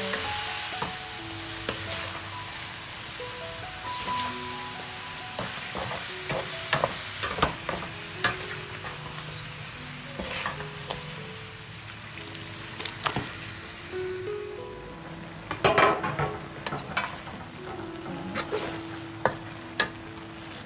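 Frog meat stir-frying with holy basil in a hot pan: a steady sizzle with the spatula clacking against the pan, the sizzle dying down over the last few seconds while the clacks go on.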